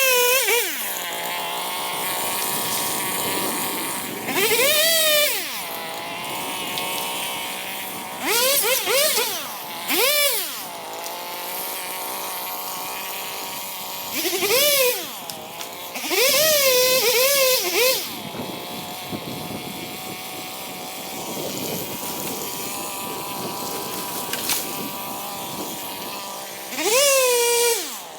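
Chainsaw idling and revved up in about seven short bursts, each rising quickly in pitch and falling back to idle. The longest burst, around the middle, is held for about two seconds with its pitch wavering, as when cutting into a tree for a hinge cut.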